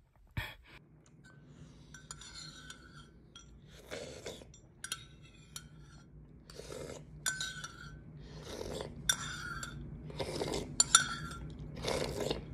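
A spoon clinking against a dish several times, every second or two, some strikes ringing briefly.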